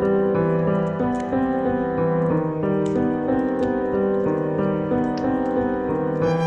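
Slow classical piano music, a few sustained notes at a time, with a fireplace crackling over it in sparse, sharp clicks.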